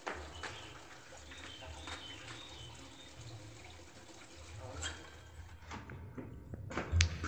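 Wooden louvred door being unlatched and swung open: scattered clicks and knocks, the sharpest near the end, over a steady low rumble.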